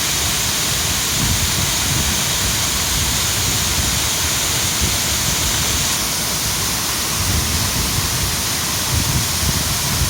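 Mountain stream rushing and splashing: a loud, steady hiss of running water with an uneven low rumble beneath it.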